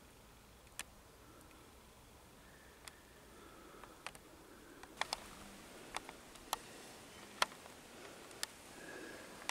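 About a dozen faint, sharp clicks and ticks at irregular intervals over a low steady background, the loudest a little over two thirds of the way through.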